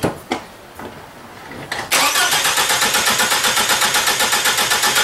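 Four-cylinder car engine cranked over by its starter motor, beginning about two seconds in after a couple of short clicks, with an even, steady rhythm of about seven compression pulses a second: the normal cranking sound of an engine with good compression.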